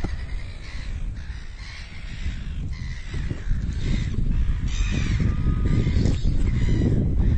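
Wind buffeting the microphone with a heavy low rumble, over which a bird gives harsh, crow-like cawing calls again and again.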